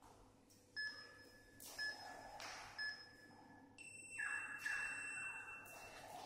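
Tabata interval timer on a tablet beeping a countdown: three short beeps about a second apart, then a longer, higher tone that marks the switch to the next interval. Heavy breathing from the exercising man runs between the beeps.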